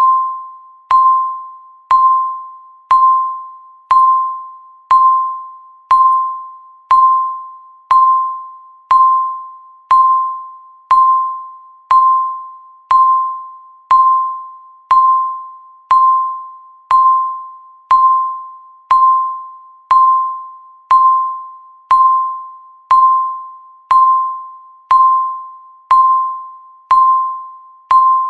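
A countdown timer's tick sound: a short, bell-like pitched ping once a second, each one fading away before the next.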